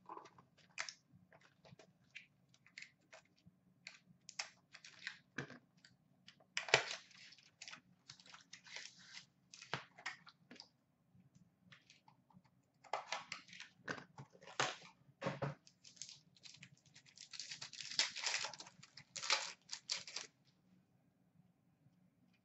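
A hockey card pack being torn open and its cards handled: the wrapper tearing and crinkling, and cards rubbing and sliding against each other, in bursts of short rasps and rustles.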